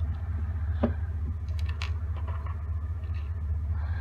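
A steady low hum, with a sharp click about a second in and a few light ticks after it, from small carburetor parts and screws being handled during disassembly.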